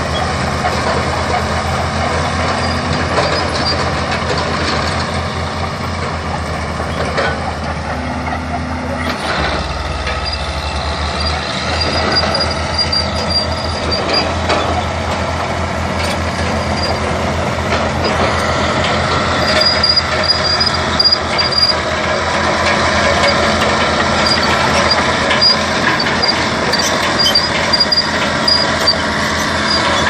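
Fiat-Allis 14C crawler bulldozer's diesel engine running under load as it pushes and levels soil, growing louder in the second half as the machine comes close. Short high squeaks come and go.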